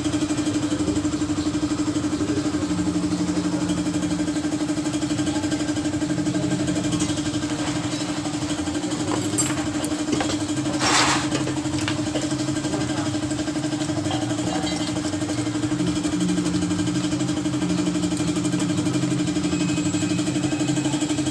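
A steady machine hum at one even pitch, like a motor or engine running, with a brief hiss about eleven seconds in.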